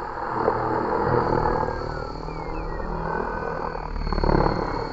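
Radio-controlled model plane flying past, its motor getting louder about four seconds in as it comes toward the microphone, with wind rumbling on the microphone.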